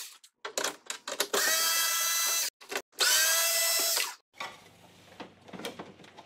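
Cordless power screwdriver backing screws out of a portable air conditioner's back panel. It runs twice, each time for about a second, its pitch rising as it spins up and falling as it stops. Light clicks of handling come between the runs and after them.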